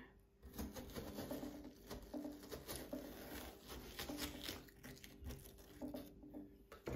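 Metal spoon scooping flesh out of a watermelon: faint, irregular wet scraping and tearing of the fruit.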